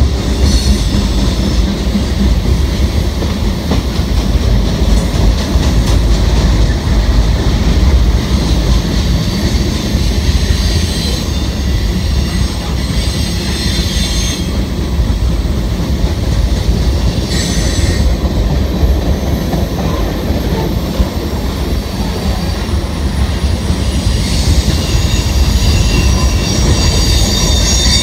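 Freight train of tank cars and hopper cars rolling across a steel girder bridge: a loud, steady rumble, with the wheels breaking into high squeals several times, longest near the end.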